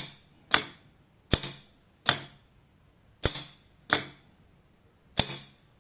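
12 V electromagnetic solenoid bolt lock and its relay snapping on and off, about seven sharp clacks under a second apart, as a magnet near a fan's Hall sensor switches the relay.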